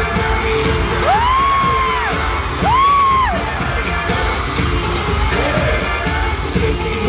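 Live pop music over a concert sound system, with a heavy steady beat and singing. Two high notes slide up and fall back, about a second in and again near three seconds.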